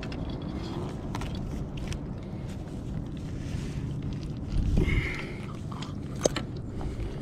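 Hands handling a caught California sheephead in a mesh landing net on a kayak: scattered small clicks, scrapes and rustles as the fish is tied up, with a louder bump about five seconds in.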